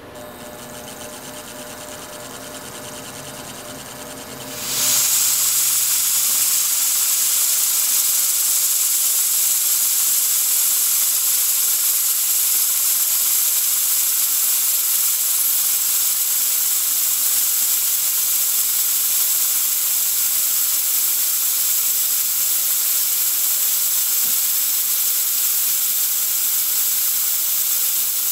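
Milling machine running a boring head through a hole in Corian and aluminium, with a low steady hum. About four and a half seconds in, a mist coolant sprayer comes on with a loud, steady hiss that covers the machine sound.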